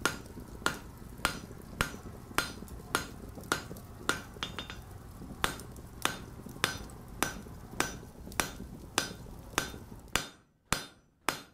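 Blacksmith's hammer striking an anvil in a steady rhythm, nearly two ringing blows a second. A low steady rumble runs beneath the blows and stops near the end, while the hammering goes on.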